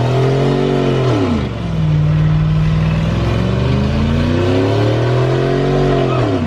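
Pickup truck's engine revving hard during a burnout. The revs climb and drop away about a second in, hold steadier for a while, then climb again and fall off near the end.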